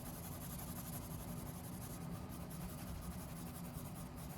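Pencil shading on drawing paper: steady, soft scratching strokes.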